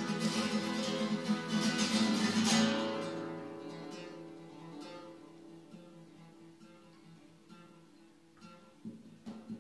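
Nylon-string classical guitar played solo: rapid, loud strummed strokes that stop about two and a half seconds in on a chord left ringing and slowly fading, with a few soft single notes over it. New plucked notes start again near the end.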